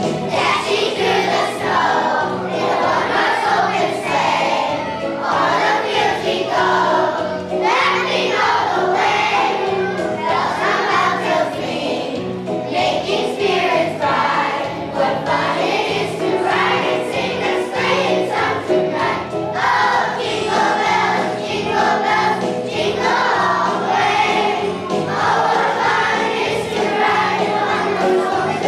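Children's choir singing a holiday song over a musical accompaniment.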